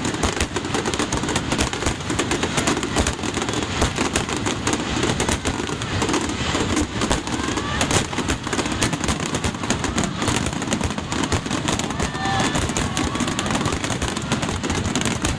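Fireworks finale barrage: a dense, unbroken run of shell bursts and crackling, with a heavy rumble underneath and a few faint whistles.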